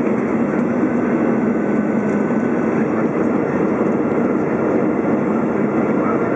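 Steady roar of the engines and rushing air inside the cabin of an Airbus A320 on final approach.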